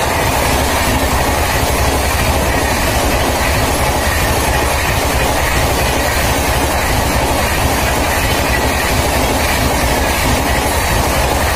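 An express train's coaches rushing past at about 130 km/h, a steady loud rumble with the wheels clattering over the rails.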